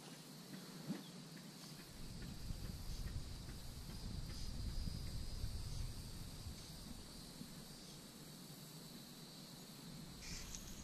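Steady high-pitched drone of insects in the summer vegetation, with a low rumble coming in about two seconds in and easing off near the end.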